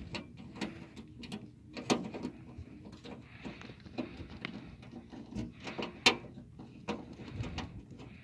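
Screwdriver turning a screw into the back of a metal PC case to refasten the side panel: irregular sharp metal clicks and scrapes.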